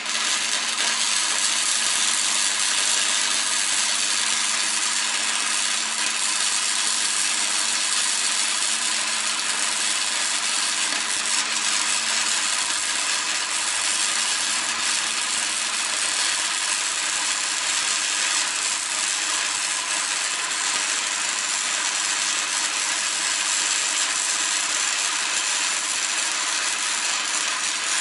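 Steady, harsh hissing noise of metal fabrication work on a steel mounting plate, from a power tool or a welder running without a break. It starts abruptly, and a faint low hum under it fades out about halfway through.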